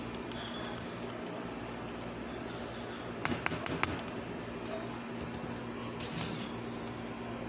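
Metal slotted spoon clinking and scraping against a stainless mesh strainer while drained fruit cocktail is scooped out, with a quick run of sharper clinks about three and a half seconds in, over a faint steady hum.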